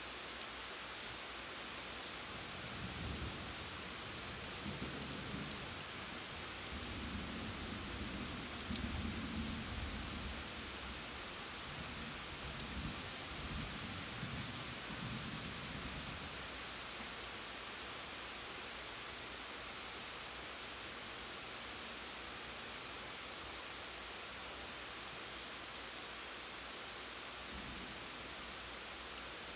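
Steady rain hissing down, with a long low rolling rumble of thunder that builds from about three seconds in, is loudest around the middle, and dies away about halfway through; a faint further rumble comes near the end.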